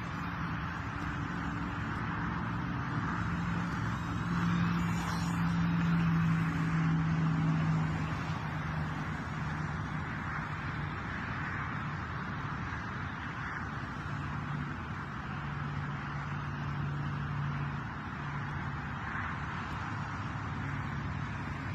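Twin small electric motors and propellers of a mini RC plane buzzing in flight over a steady hiss; the buzz grows louder about four seconds in and fades after about eight seconds, then comes and goes more faintly.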